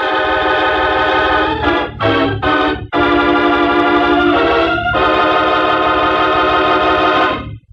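Organ music: a dramatic bridge of loud held chords, broken by a few short chords about two seconds in, then long sustained chords that change near the middle and cut off near the end.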